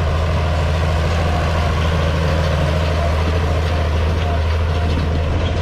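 Farm tractor engine running at a steady speed, a loud, even, low drone.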